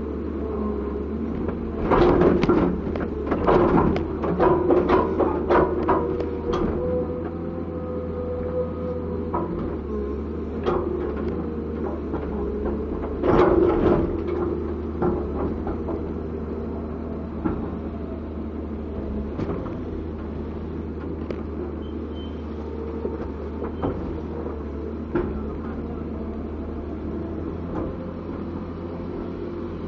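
Komatsu PC200-7 excavator with its diesel engine running steadily, and a run of loud metallic clanks and knocks about two seconds in, then another burst around thirteen seconds, with scattered lighter knocks after.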